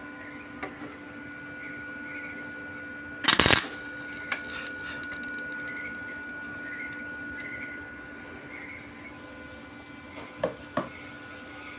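MIG welder laying one short tack weld about three seconds in, a crackling burst of under half a second, over a steady hum. A few light clicks and taps follow, two of them near the end.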